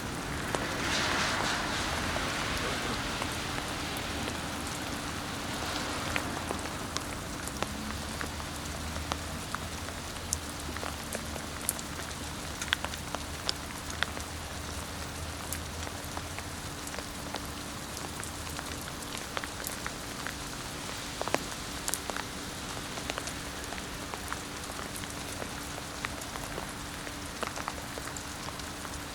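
Steady rain-like pattering: an even hiss dotted with many small sharp ticks, swelling briefly about a second in, over a faint steady low hum.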